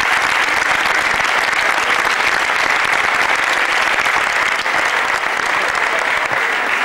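A crowd applauding: steady, dense clapping from many hands.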